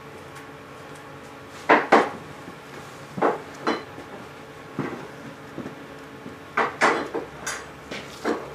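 Irregular sharp metallic clicks and knocks as an engine valve is handled in its seat in a Briggs & Stratton cylinder block and a suction-cup valve-lapping stick is fitted onto it. The loudest is a pair of clicks about two seconds in.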